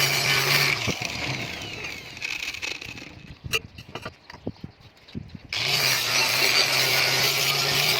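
An electric power tool running loudly with a steady hum. It winds down over the first few seconds, a few sharp knocks come in the quieter gap, and it runs again from about five and a half seconds in.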